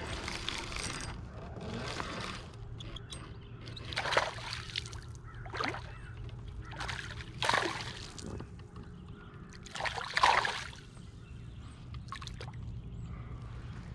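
A hooked bass thrashing at the surface while it is reeled toward the kayak: a handful of short splashes, the loudest about ten seconds in.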